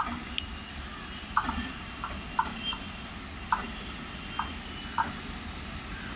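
WAP-7 electric locomotive and its coaches approaching slowly: a low steady rumble with sharp clicks about once a second.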